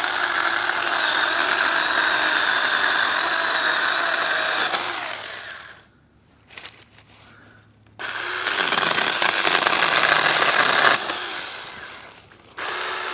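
Saker Mini 20-volt cordless chainsaw with a 4-inch bar running and cutting a branch: a steady motor whine with chain noise for about five seconds that winds down. After a short pause with a click it runs for about four more seconds and winds down again, then starts once more near the end.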